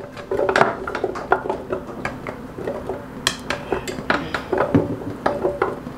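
Chopped carrot pieces scraped off a plate with a spatula and dropped into a plastic blender jar: a string of irregular taps and clacks.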